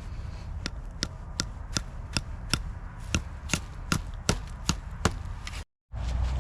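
A run of sharp, evenly spaced knocks, about three a second, with a brief pause midway; the run stops at an abrupt cut near the end.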